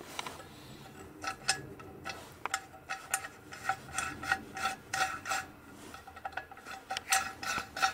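Light metallic ticking, about two or three ticks a second with a brief pause about six seconds in, as the freshly fitted oil pump drive gear in a Yamaha XS650 crankcase cover is turned by hand.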